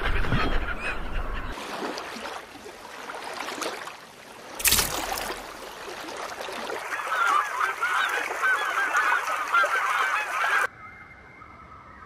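A flock of birds calling, with many short overlapping calls packed together in the second half, cutting off suddenly near the end. In the first second or so there is breaking surf, and about four and a half seconds in there is a brief loud rush of noise.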